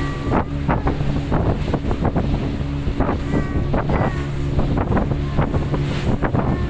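A boat's engine running steadily, with water splashing against the hull and wind on the microphone.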